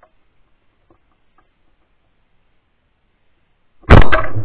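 A single over-under shotgun blast about four seconds in, very loud and close from the gun-mounted camera, with a ringing echo trailing off after it.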